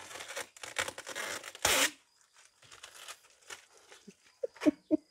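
Packing material from a cardboard box being torn and pulled about: a run of rasping tears over the first two seconds, the loudest a short rip near the end of that run, then a few light clicks and knocks.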